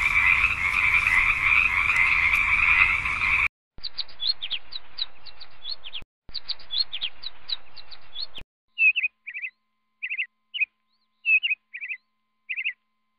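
Three spliced nature recordings. First, a loud, dense chorus of animal calls lasting about three and a half seconds, likely frogs. Then a bird's rapid, high chirps, each falling in pitch, followed by a string of short, separate bird chirps.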